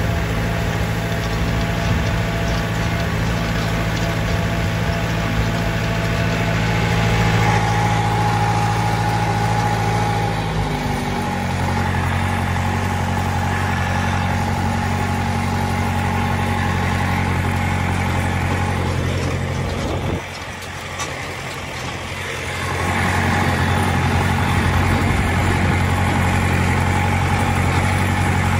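John Deere 2510's four-cylinder diesel engine running steadily while the tractor pulls a hay rake. The engine note shifts about ten seconds in, drops off for a couple of seconds around twenty seconds in, then picks up again.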